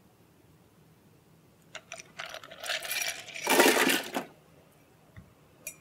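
Bar tools, glassware and ice clattering on the bar top. Clicks lead into a rattling clatter, loudest about three and a half seconds in. A couple of short ringing clinks come near the end.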